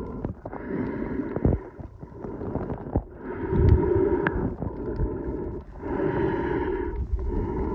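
Muffled water sloshing and gurgling around a camera held just under the surface. It swells and fades about every one to two seconds, with a few sharp clicks.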